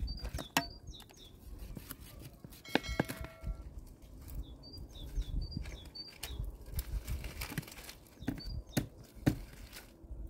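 Dry sticks and twigs snapping and clattering as they are handled and laid into the firebox of an outdoor stone stove, with small birds chirping in short groups now and then. A brief ringing note sounds about three seconds in.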